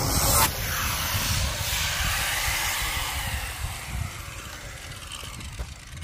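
Hand-held electric power tool working on a wooden frame. A loud, harsh grinding for the first half second stops abruptly, and the tool whirs on more quietly, its pitch slowly shifting as it fades.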